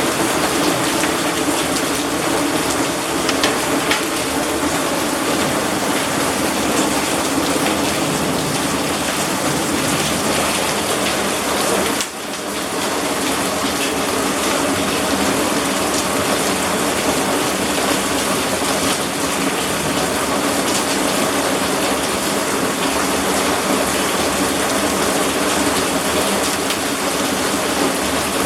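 Heavy storm rain pouring down steadily, with scattered sharper taps in the downpour; the sound drops briefly about twelve seconds in.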